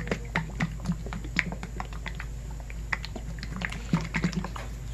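Lidded pint jar of stoneware crystal glaze being shaken hard by hand, its thick contents knocking and clicking inside in quick, irregular strokes, several a second. The shaking works the crystals that settled at the bottom back up through the glaze.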